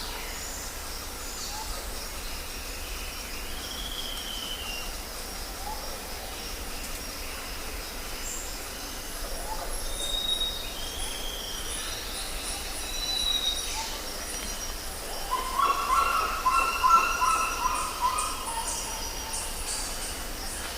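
Jungle ambience: birds calling with short whistled notes over a steady background hiss, and a louder run of quick repeated call notes about three quarters of the way through.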